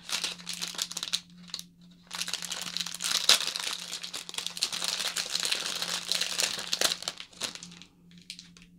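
Crinkly packaging being handled and rustled as a makeup brush is unwrapped. There is a short burst at first, then a longer stretch of crinkling from about two seconds in that fades out about seven seconds in.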